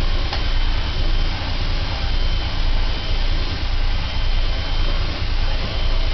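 Vacuum cleaner running steadily, a high motor whine over a loud rush of air, as it sucks up dirt and debris.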